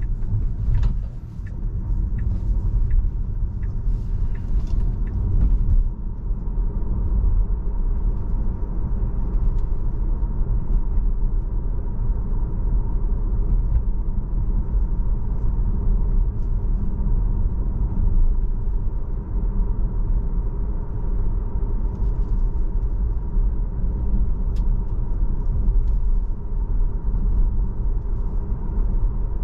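Road and tyre noise inside a Tesla's cabin while driving: a steady low rumble. For the first five seconds or so a turn-signal clicker ticks about twice a second, then stops.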